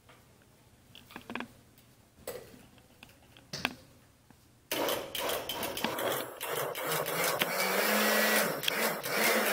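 A few light knocks, then a countertop blender switches on about halfway through and runs, churning a thick purée of guacamole with water, cilantro and green onion into avocado sauce. The motor's pitch wavers and rises near the end as the thick mixture moves around the blade.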